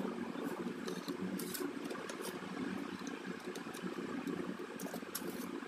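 Light, irregular clicks and taps of small phone parts and repair tools being handled on a workbench, over a steady low background hum.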